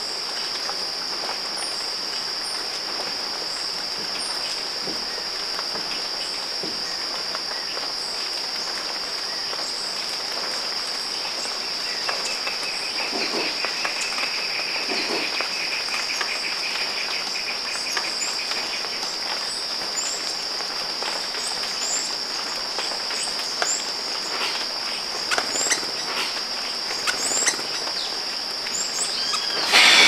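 Insects droning steadily at one high pitch, with a second, lower pulsing trill from about twelve to nineteen seconds in. Short bird chirps come in here and there, more often in the second half.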